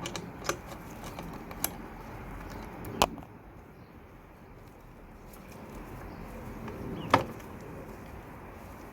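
A few isolated sharp clicks and knocks of tools and metal parts being handled while a bolt on a motorcycle rack is fitted. The loudest come about three seconds in and about seven seconds in.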